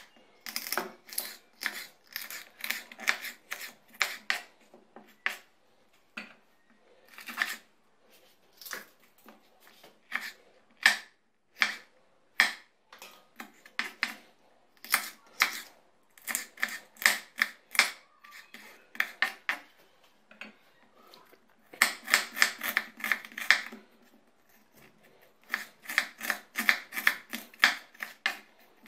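Kitchen knife chopping peppers and onion on a wooden cutting board: sharp taps of the blade on the board, some single and some in quick runs of several a second, with short pauses between.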